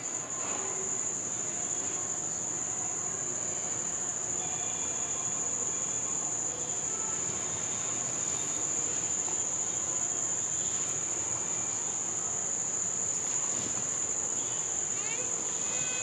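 Crickets trilling continuously: one steady, unbroken high-pitched tone.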